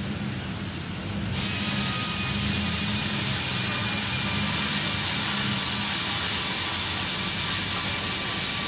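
Workshop machinery noise: a steady low hum, joined suddenly about a second in by a loud, steady hiss that runs on unchanged.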